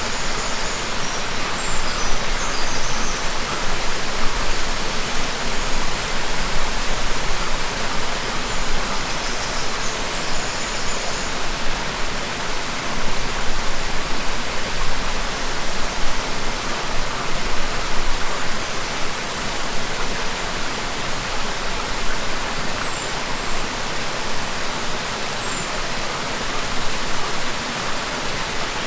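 Waterfall: a steady, even rushing of falling water, with a few faint high chirps now and then.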